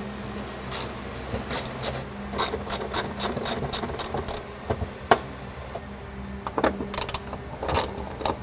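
Socket ratchet clicking as it unscrews the bolts of the Jeep's factory cargo tie-down anchors. A quick even run of clicks, about four a second, comes in the first half, and a few more near the end.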